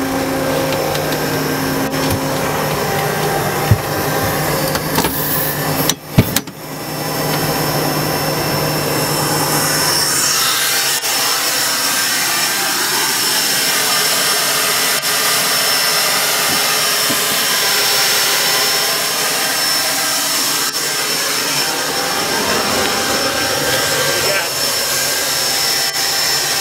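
Gulfstream G-IISP's jet turbine running: a loud, steady rushing hiss, with a high steady whine from about ten seconds in. A sharp knock about six seconds in.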